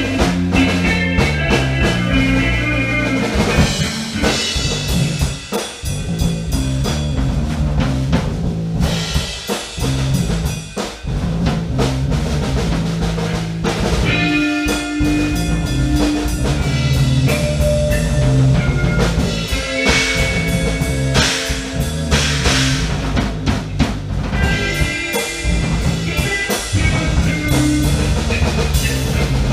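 Live band playing a freeform instrumental jam: drum kit keeping a steady beat under a bass line that steps between notes, with guitar playing over the top.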